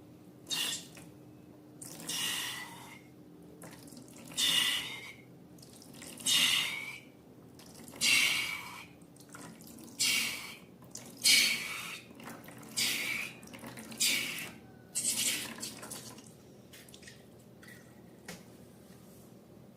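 Wet, squishy slime sounds: about ten short squelches, roughly one every one and a half to two seconds, then a few fainter clicks near the end.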